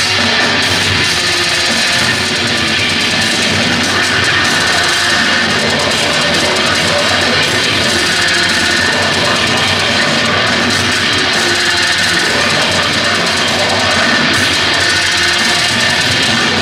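A technical death metal band playing live at full volume: distorted electric guitars and bass over a drum kit, one dense, unbroken wall of sound.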